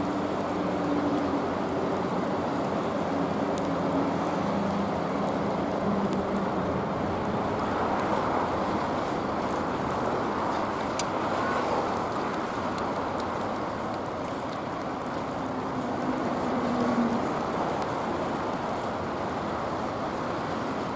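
Wind rushing over the microphone above a steady harbour background noise, with a faint low hum that fades in and out.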